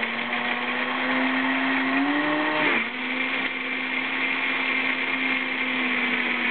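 OMNI 5 high-power blender motor running at speed, blending apples, carrot, goji berries, almonds and water into a thick sauce. Its steady hum rises slightly in pitch, dips briefly a little before halfway, then runs on evenly.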